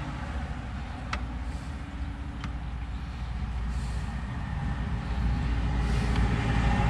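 Steady low rumble, growing louder in the second half, with two faint clicks as plastic cable connectors are handled at the back of the fishfinder mount.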